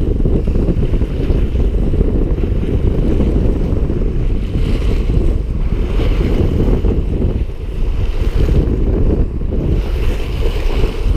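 Strong wind buffeting the microphone in a steady low rumble, with sea waves washing and breaking against a rock ledge.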